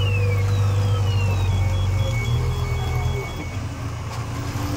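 Heavy diesel engine of a wheeled combine harvester running hard under load as it churns through deep mud, its note shifting about two seconds in. A high beep repeats rapidly for about two seconds over it.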